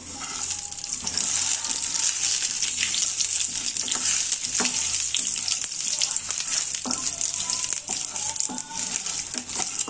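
Black mustard seeds sizzling and crackling in hot oil in a kadhai as the tempering begins, with a wooden spatula stirring them. A steady hiss builds up over the first second, with scattered sharp pops and scrapes throughout.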